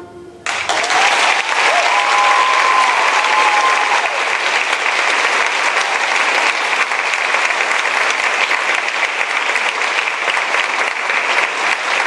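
Audience applause breaking out about half a second in and running on steadily after a ballet solo's music ends, with a single held high call rising over it between about two and four seconds in.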